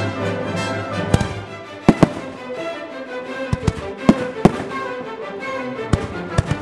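Fireworks shells bursting: about ten sharp bangs, some in quick pairs, over music that plays throughout.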